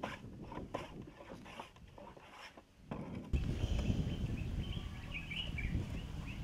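Hand plane worked along a wooden board in a series of short strokes at uneven intervals. After about three seconds this gives way to outdoor ambience with a low rumble and birds chirping.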